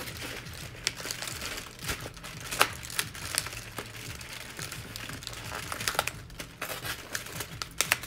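Cardboard advent calendar being handled and pried open: crinkling and rustling of paper and card, with scattered sharp clicks and snaps.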